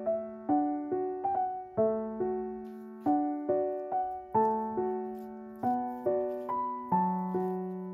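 Background piano music: a slow, gentle melody of single notes, about two or three a second, each fading away over a held low note.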